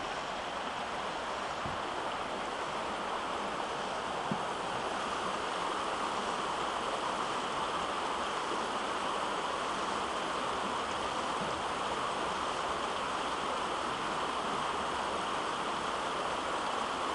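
Stream water rushing over a shallow, rocky riffle: a steady rush that grows a little louder in the first few seconds. There are two faint knocks in the first five seconds.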